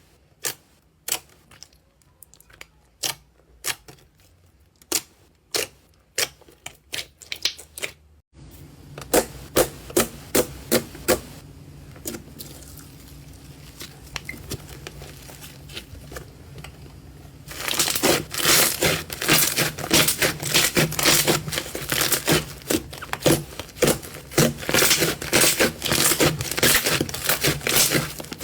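Slime being worked by hand, making sharp pops and clicks about once or twice a second. After an abrupt cut about a third of the way in the pops come more often, and about two-thirds of the way through they thicken into dense crackling.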